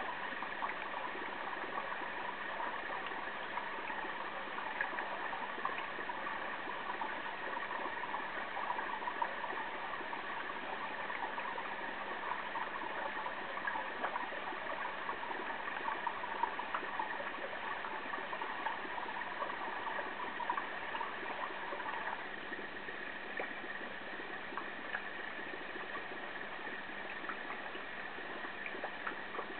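Steady watery rush of aquarium water, as from a running tank filter, with a faint steady hum; part of the rush drops away about three-quarters of the way through.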